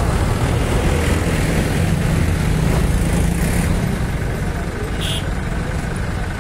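Diesel tractor engines running close by as tractors towing loaded trolleys pass, amid motorcycle and road traffic noise. A short high beep sounds about five seconds in.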